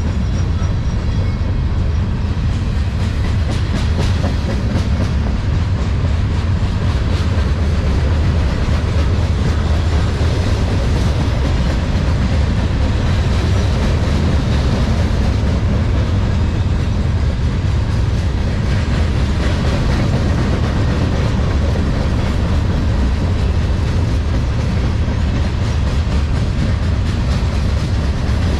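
Freight train of gondola cars rolling past close by: a steady low rumble with a constant run of wheel clicks over the rails.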